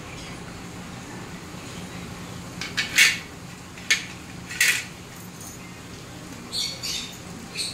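Steel kitchen utensils clinking and knocking: a cluster of sharp clinks about three seconds in, further knocks around four and four and a half seconds, and a few lighter clinks near the end, over a steady low hum.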